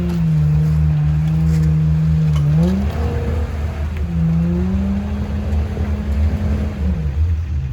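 Ford Bronco's Powerstroke diesel engine running on a trail, its pitch rising twice as it is given throttle and dropping back near the end, over a heavy low rumble.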